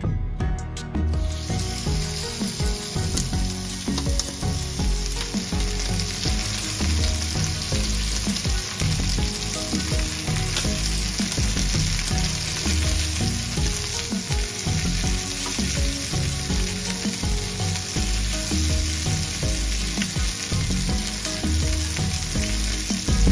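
Skin-on chicken pieces sizzling steadily as they sear in a hot cast-iron grill pan, the sizzle starting about a second in, with tongs now and then moving the pieces.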